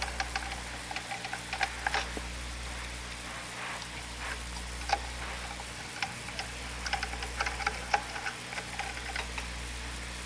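Scattered light clicks and taps of small screws and a Pozidriv screwdriver against the oscilloscope's metal chassis as screws are set in by hand, over a steady low hum.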